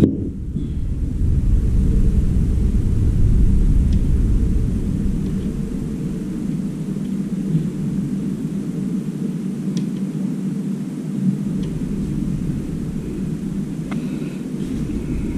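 Steady low rumble, heavier in the first half, with a few faint clicks from handling small parts.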